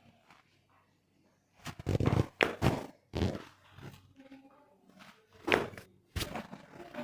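Thuds and knocks of a chiropractic adjustment on a patient on the treatment table. A loud run of thumps comes about two seconds in, then single sharp knocks at uneven intervals, with a few more near the end.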